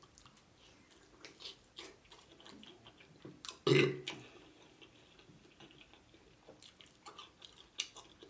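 Close-miked chewing of fried chicken wings, with scattered wet mouth clicks and crunches. One short burp comes about three and a half seconds in and is the loudest sound.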